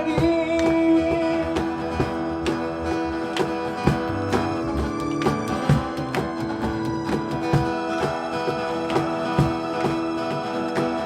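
Live band music: a sung line ends about a second in, then strummed guitar accompaniment carries on through an instrumental passage with a steady beat.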